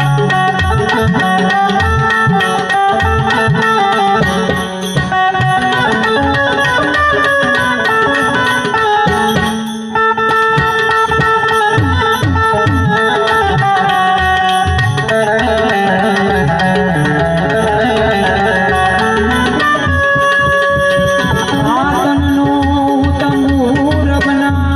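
Harmonium playing a melody in raag Bhairavi over tabla accompaniment, with held reed tones and steady drum strokes, in an instrumental passage without singing.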